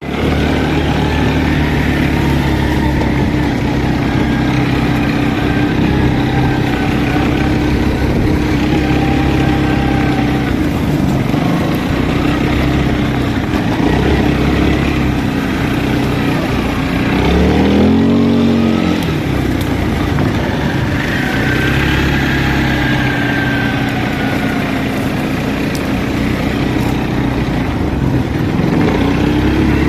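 Linhai 300cc ATV engine running steadily while riding, with a brief rise and fall in engine pitch a little past halfway.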